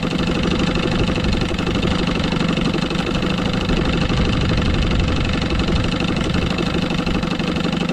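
1976 Johnson 6 hp two-stroke twin outboard motor idling steadily, running on a low-speed idle needle just cleaned and set about 1.5 turns out.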